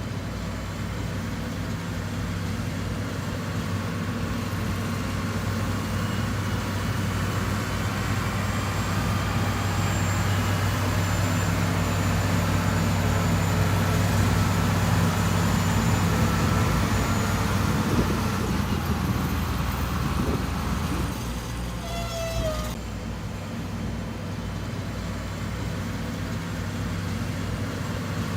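Heavy earthmoving machine's diesel engine running steadily, a little louder in the middle. About three quarters of the way through the engine note drops briefly and a short high squeal sounds before it picks up again.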